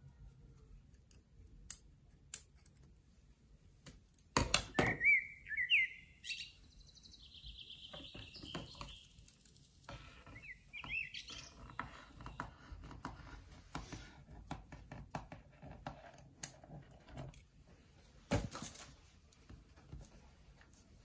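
Kitchen scissors snipping through a stack of thin warqa pastry sheets, with light clicks of the blades and papery rustling as the sheets are handled. About four seconds in come two sharp knocks, then a high chirping sound for several seconds.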